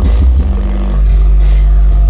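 Music played loud through a small Polk 5.1 home theatre system, dominated by a deep bass note from the subwoofer that is held steady from about half a second in.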